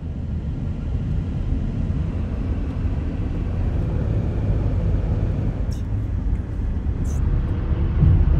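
Road noise of a car being driven, heard inside the cabin: a steady low rumble. Two brief high clicks come in the second half.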